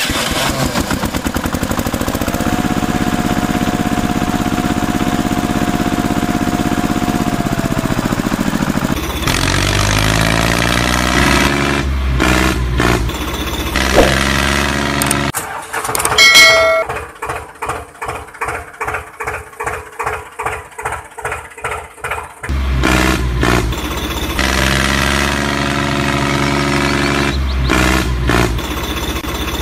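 Diesel tractor engine sounds: the engine runs steadily, then chugs in slow pulses of about two a second for several seconds through the middle, then runs steadily again.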